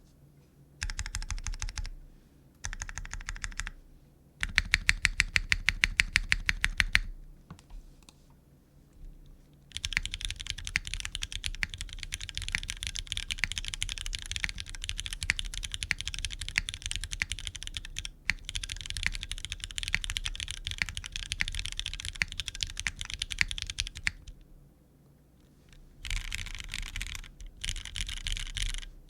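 Typing on a gasket-mounted 60% mechanical keyboard with linear Cherry MX Black switches, a full aluminium plate and GMK keycaps. It starts with two short bursts of keystrokes, then a couple of seconds of loud, even single strokes at about eight a second. After a short gap comes a long stretch of fast typing, then a pause, then typing resumes near the end.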